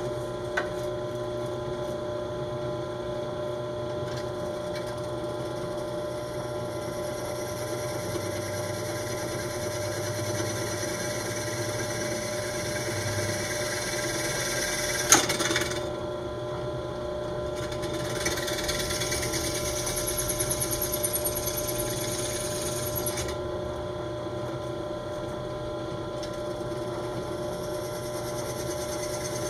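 Benchtop drill press running steadily as a twist bit drills small holes through a fiberglass rocket body tube. A high hiss of cutting comes in twice, with a sharp click about halfway.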